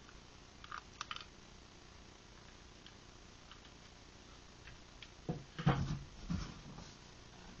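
Hands handling things in a cardboard shipping box: a few faint clicks and taps about a second in, then a cluster of short, dull thumps and rustles against the cardboard between about five and six and a half seconds.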